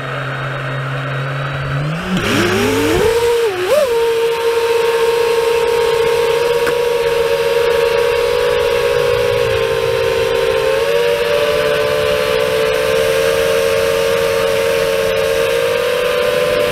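FPV quadcopter's brushless motors and propellers, heard through the onboard camera: a low steady hum at idle, then about two seconds in the pitch rises sharply as the throttle comes up and the quad lifts off. After that the motor whine holds fairly steady in flight, with a slight shift in pitch about eleven seconds in, over a rushing hiss.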